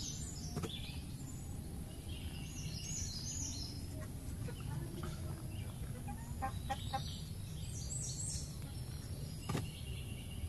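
Steady low outdoor background rumble, with a few short, high-pitched animal calls scattered through it.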